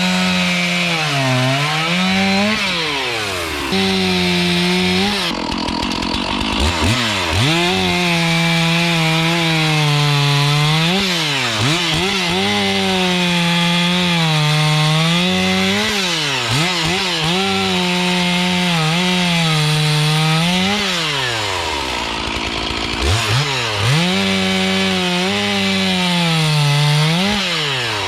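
Stihl MS 461 two-stroke chainsaw cutting firewood logs at full throttle, its pitch sagging under load in each cut and climbing back as the chain comes free, several cuts in a row. About 21 seconds in the engine drops briefly toward idle, then revs back up.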